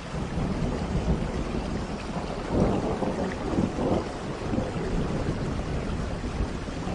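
Steady tropical rain with a low thunder rumble that swells about two and a half seconds in.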